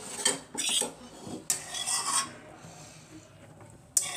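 A metal spatula scraping against a steel pan in three short strokes: one in the first second, one around the middle and one near the end.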